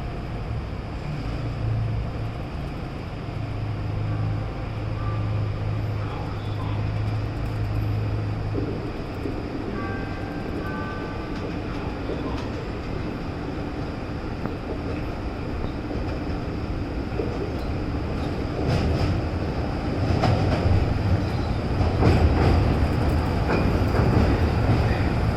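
Morrison-Knudsen 3200-series CTA 'L' train at a station: a steady low hum at first, then louder in the last several seconds, with sharp clicks of wheels on the rails.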